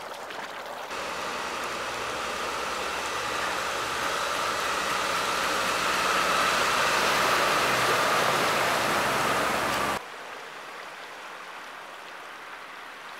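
Fire engine running as it drives through floodwater, engine and splashing water growing louder over several seconds, then cut off sharply. A quieter steady rush of floodwater flowing down the street follows.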